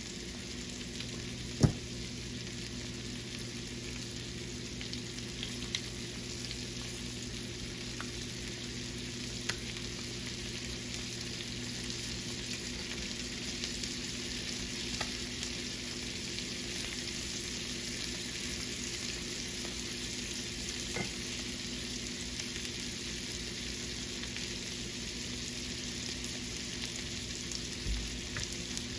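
Panfish fillets and green beans sizzling in butter and oil in a cast iron skillet: a steady frying hiss over a low hum, with a single sharp click a couple of seconds in and a few faint ticks.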